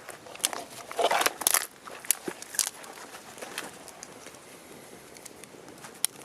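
Wood fire crackling and popping, with a cluster of louder rustles and snaps in the first three seconds, then quieter, sparser pops.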